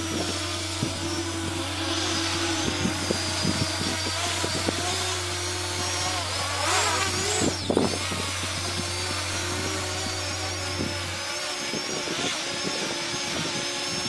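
Parrot Anafi quadcopter's propellers whining as it flies low past, the pitch sweeping up and then down as it passes close about seven seconds in.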